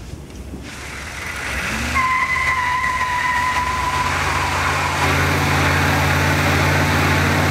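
A van's engine revs up about two seconds in and is held at high revs while its rear tyre spins on the asphalt in a smoking burnout. A high tyre squeal rings out for the first two seconds of the spin and then fades into the steady noise of the spinning tyre.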